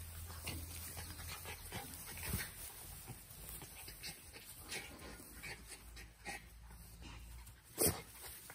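Brazilian Terrier dogs play-fighting on grass: scattered short scuffles and small dog noises, with one louder knock near the end.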